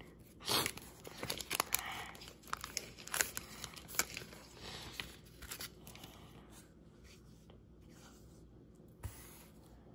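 A baseball card pack's wrapper being torn open and crinkled: a run of sharp rips and rustles over the first five seconds, then fainter handling of the cards.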